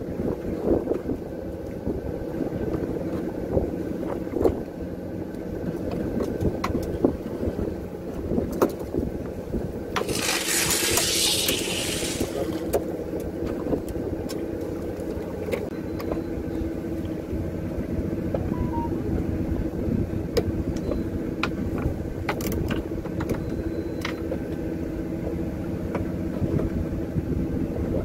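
Fishing boat's engine running steadily with a low drone, under scattered clicks and knocks from gear on deck. A short hiss rises over it about ten seconds in.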